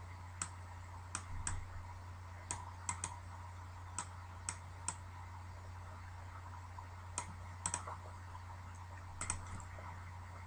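Scattered sharp clicks of a computer mouse and keyboard, about fifteen, irregularly spaced, over a steady low hum.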